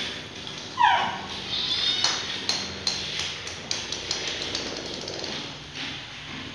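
Irregular light taps and knocks on a hard tiled floor, with a brief high cry falling sharply in pitch about a second in.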